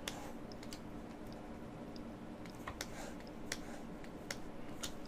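Faint, scattered sharp clicks, seven or eight of them at irregular intervals, from someone working at a computer, over a steady low hum.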